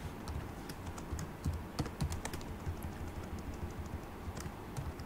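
Typing on a computer keyboard: irregular keystrokes, busiest about a second and a half to two and a half seconds in, over a steady low hum.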